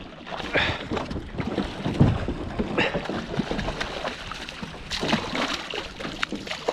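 Wind buffeting the microphone on a small boat in shallow water, with irregular knocks and bumps against the hull and a louder thump about two seconds in.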